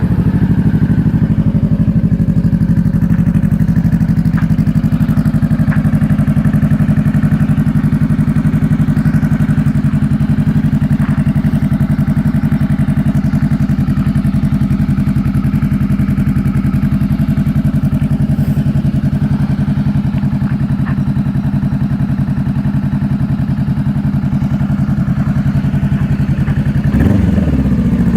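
A 2015 Honda CBR500R's parallel-twin engine, just started, idling steadily through a Coffman's slip-on exhaust with the stock silencer removed. Near the end the note wavers and gets a little louder.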